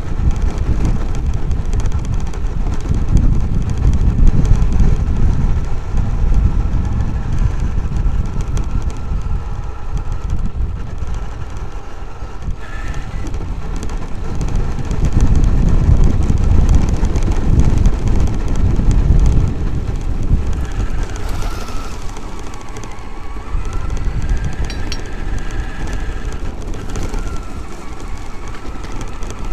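Onboard sound of a Traxxas X-Maxx electric RC monster truck driving over rough grass. Its brushless motor and drivetrain whine, rising and falling with speed, over a heavy, uneven rumble from the tyres and chassis bouncing across the ground.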